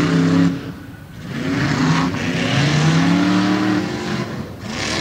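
Modified tough truck engines revving hard, pitch climbing and falling as the trucks accelerate over the dirt course. The engine sound dips briefly about a second in and again near the end.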